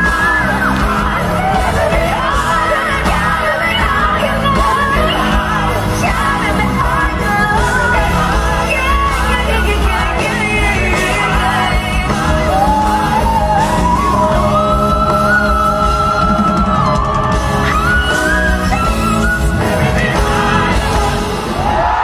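Live concert music: a woman sings a slow gospel-style ballad, with long melodic runs, over a full band with strong bass, in a large hall.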